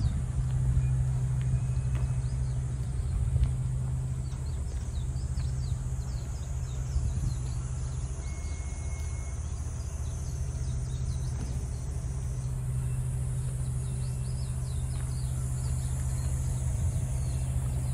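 An engine running at a steady idle, a low even hum, with small birds chirping over it.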